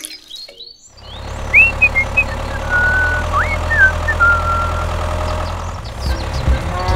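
A tractor engine idling, a steady low chug that starts about a second in and turns rougher near the end. A few high whistled chirps sound over it early in the run.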